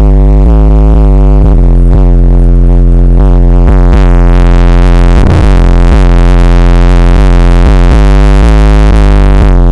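Car stereo with two 12-inch MTX Jackhammer subwoofers playing a rap track at very high volume. The deep bass is loud enough to push the recording close to full scale.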